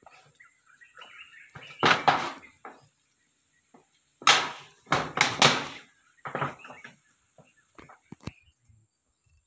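Corrugated zinc roofing sheets banging and clattering as they are shifted and knelt on: a loud pair of knocks about two seconds in, a cluster of three between four and six seconds in, and a few lighter knocks after.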